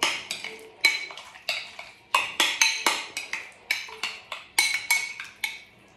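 Metal spoon stirring yogurt in a glass bowl, clinking against the glass in an irregular run of about three to four strikes a second, each with a short ring. The clinking stops just before the end.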